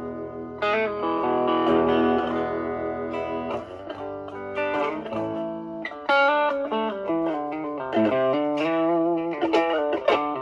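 Stratocaster with single-coil pickups played through a ProCo Brat distortion pedal (OP07 chip) into a Marshall Valvestate amp, guitar volume rolled back so the drive cleans up. A chord rings for about three seconds, then a run of single-note lead lines follows.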